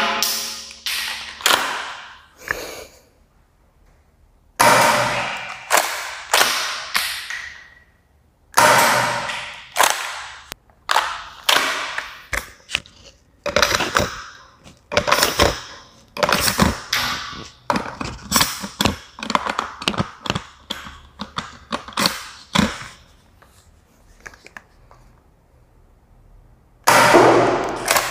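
Toy XM1014 Benelli M4 gel blaster shotgun being handled and worked: many sharp plastic clicks and clacks, bunched in clusters with short pauses between them.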